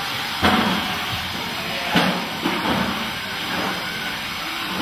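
Steady hissing din of a robot-combat arena, broken by a sudden louder knock or shout about half a second in and again about two seconds in.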